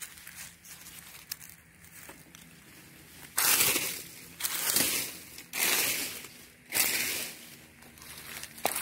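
Dry fallen leaves crackling and rustling as hands rake through the leaf litter searching for coffee cherries. Faint scattered crackles at first, then four loud spells of rustling from about three seconds in.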